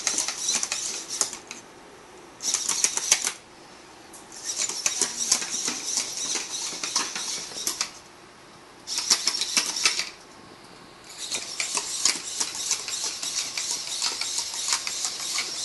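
Bioloid Premium humanoid robot walking: its servo motors buzz and its feet clatter on the tiled floor in rapid clicks. The sound comes in spells of about one to three seconds, with short pauses between steps.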